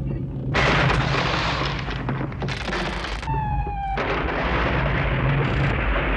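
Cartoon sound effects: a run of noisy rushing and crashing sounds with a steady low hum beneath, broken about three seconds in by a short, high, slightly falling whine.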